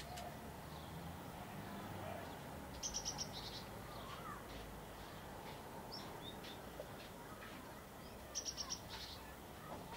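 A bird calling twice: a quick run of four or five high chirps about three seconds in, and another near the end.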